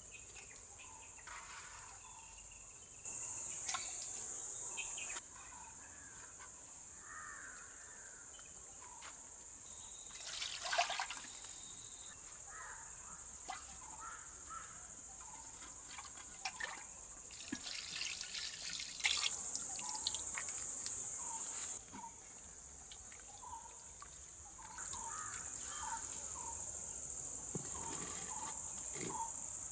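Curry gravy splashing and dripping as fish pieces and liquid are moved between clay pots, with scattered clinks and splashes. A high insect drone stops and starts several times throughout, and birds chirp.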